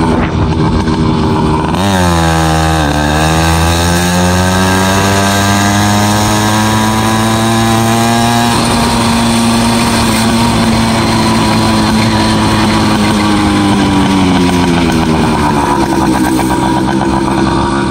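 FM-80 two-stroke race engine with a mini expansion chamber on a motorized bicycle, running hard under way. Its pitch dips about two seconds in, then climbs steadily for several seconds as the bike speeds up. It changes abruptly, holds, and drops again as the throttle eases near the end.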